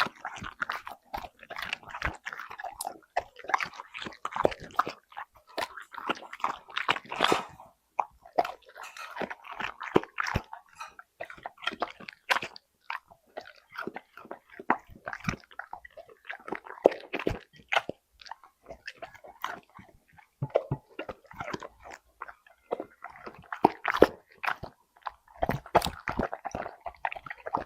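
A dog chewing and crunching treats, with crisp, irregular crunches that come in runs broken by short pauses.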